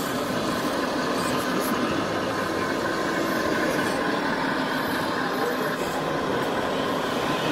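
Steady busy-hall ambience: the murmur of many voices over a steady engine-like hum, with no single sound standing out.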